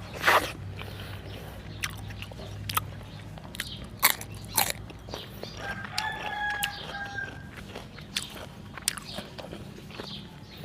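A person eating close to the microphone: sharp smacking and crunching bites and chewing. A rooster crows once in the background about six seconds in, lasting about a second and a half.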